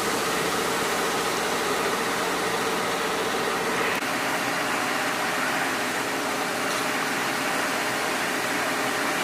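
Steady idling hum of a parked police mobile command truck, with an even hiss over it; the hum shifts slightly about four seconds in.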